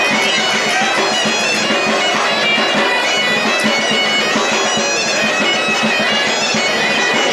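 Bagpipe music: a tune played over a steady, unbroken drone.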